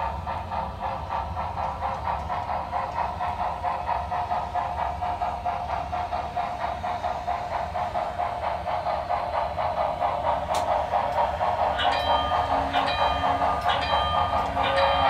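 Sound-equipped HO-scale Broadway Limited 2-10-4 steam locomotive chuffing in a rapid, steady rhythm, growing louder as it approaches. Near the end a repeating crossing bell from the wig-wag signal starts up alongside it.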